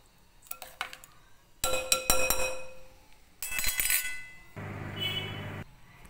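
Metal spoon clinking and scraping against a glass bowl while stirring upma, with a couple of loud ringing clinks, then a steady hum for about a second near the end.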